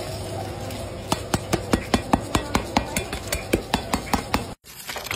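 A knife blade tapping a sheet of crisp roast-pig crackling, a fast even run of sharp hard taps, about five a second, starting about a second in. After a brief break near the end, crackling sounds begin.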